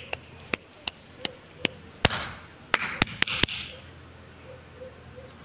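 About a dozen sharp knocks or taps at an uneven pace, bunched closer together about three seconds in, then stopping partway through.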